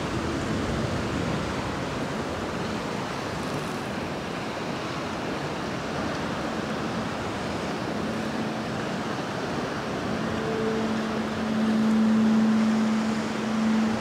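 Steady rushing of sea surf and wind on the microphone. About ten seconds in, a low sustained tone comes in and swells, holding steady.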